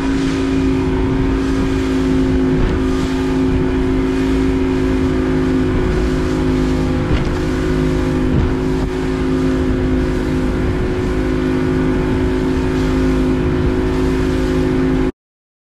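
Motorboat under way at steady cruising speed: the engine runs with an even drone and a steady whine while water rushes along the hull. The sound cuts off abruptly shortly before the end.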